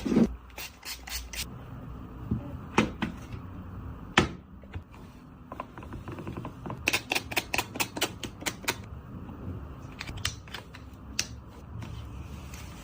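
Sharp clicks and taps from handling a smartphone and its packaging, with a quick run of clicks about seven to nine seconds in and a few louder knocks.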